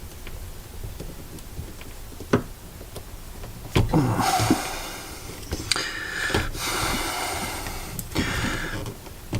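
Handling noise from taking apart a plastic lightsaber hilt: a couple of sharp clicks, then several second-long scraping and rubbing sounds as parts are worked loose.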